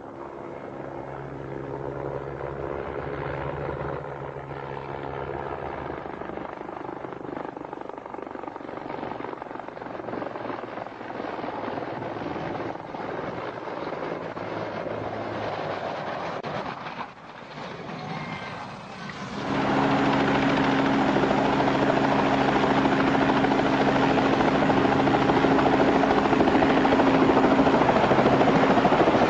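Helicopter rotor and engine running, a steady hum. About nineteen seconds in, a sudden change to a louder, closer small helicopter hovering low over the ground.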